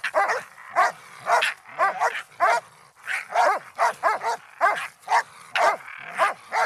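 Young Russo-European Laika barking in a fast, uneven string of short yelping barks, about two a second, each rising and falling in pitch. It is baying at a raccoon it has found and holds at bay.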